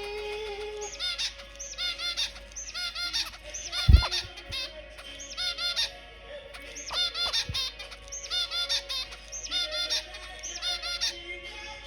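Zebra finches calling excitedly, with bursts of short, nasal honking calls from several birds at once, repeated over and over. A single sharp thump sounds about four seconds in.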